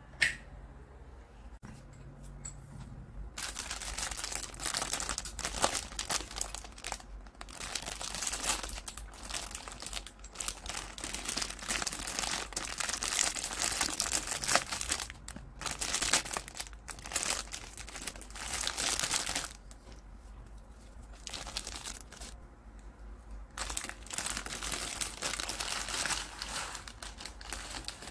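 Plastic Indomie instant-noodle packet crinkling in the hands and being pulled open, in two long stretches of crackling with a quieter pause of a few seconds between them.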